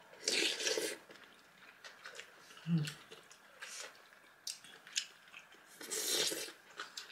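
Close-up eating sounds: a few bursts of chewing on a mouthful of zucchini and pork soup with rice, with a brief hum of approval about three seconds in.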